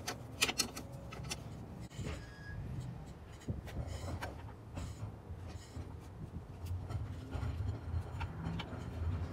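Clicks and light clatter of hand tools and metal parts being handled while mounting an ARB twin air compressor, sharpest in the first second, over a low steady rumble.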